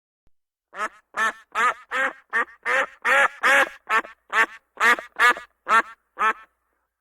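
A duck quacking: a fast run of about fourteen loud quacks, two or three a second, starting about a second in.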